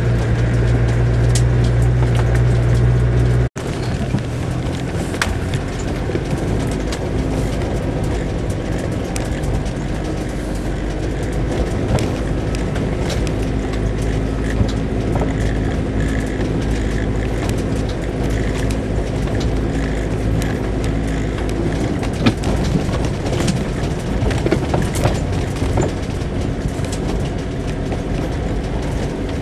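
Land Rover 4x4 driving along a rough green lane: a steady engine drone with knocks and rattles from the bumpy track. There is a brief dropout about three and a half seconds in, and after it the sound is rougher, with more frequent clicks.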